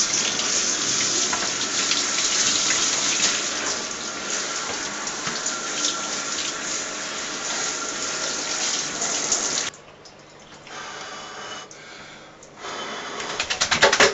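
Handheld shower head spraying water over a wet dog in a shower stall, a steady hiss that cuts off suddenly about ten seconds in. Near the end a quick run of spattering flaps as the wet Labrador shakes itself off.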